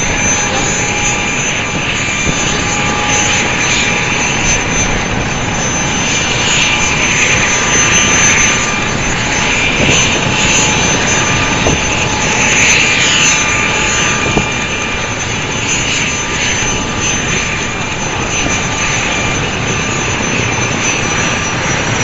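Helicopter running, loud and steady: the dense noise of its rotor and engine with a high whine held at one pitch.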